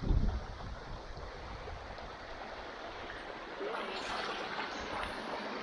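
Steady rush of a flowing mountain stream, growing a little louder about two-thirds of the way through. A brief low thump at the very start.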